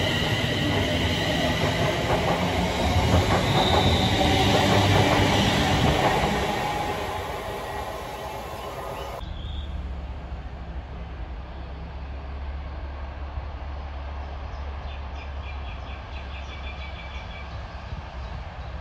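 Electric multiple-unit passenger train passing close by at speed, with steady high tones over the rush and rattle of its wheels; it is loudest a few seconds in and then fades. After a sudden cut about halfway through, a steady low rumble of a diesel freight locomotive still far off and approaching.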